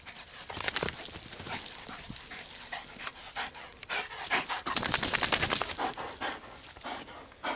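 A dog panting close to the microphone after a sprint, with quick irregular breaths and sniffing, loudest about five seconds in.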